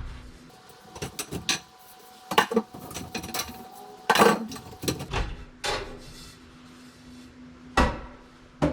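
Clinks, clicks and knocks of an old fluorescent ceiling fixture being handled as its tubes are taken out: several separate sharp contacts, the loudest about four seconds in and another near the end.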